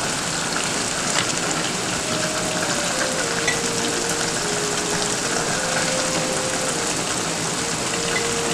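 Pan of ayamase stew, thick green pepper sauce in palm oil, sizzling steadily on the stove. A faint tune of held notes runs underneath from about two seconds in.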